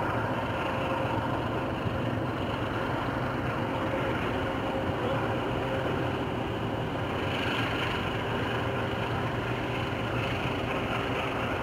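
Steady low engine drone of a purse-seine fishing vessel under way, over an even hiss.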